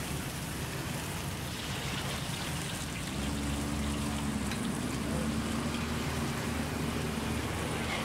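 Steaks sizzling on a hot flat-top griddle, a steady crackling hiss. About three seconds in, a steady low engine-like hum joins it.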